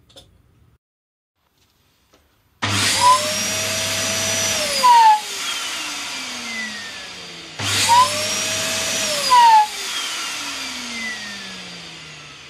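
Household canister vacuum cleaner, its inrush-current soft-start circuit removed, switched on twice. Each time the motor comes up to full speed within about half a second and runs for about two seconds, then is switched off, and its whine falls in pitch as it spins down over several seconds.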